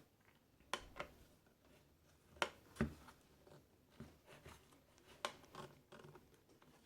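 Faint, scattered clicks and light taps of a screwdriver working loose the screw that holds an amplifier IC on the circuit board, with a few stronger knocks about two and a half seconds in.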